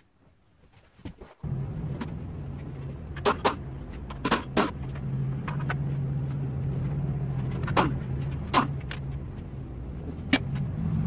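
Sharp metallic clicks and clinks of hand tools and bike parts, about seven of them, as a dirt bike's seat and muffler are taken off. Under them, a steady low mechanical hum starts abruptly just over a second in.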